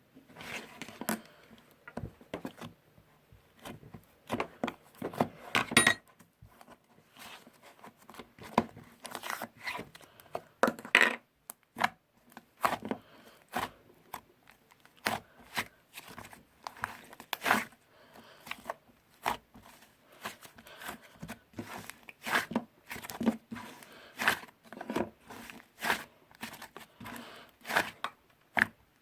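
Irregular crinkling and tearing handling noises, broken by many short sharp clicks and taps.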